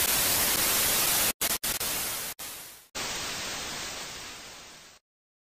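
Loud white-noise static, like a detuned TV, broken by several abrupt dropouts between about one and a half and three seconds in. It then fades a little and cuts off to dead silence about five seconds in.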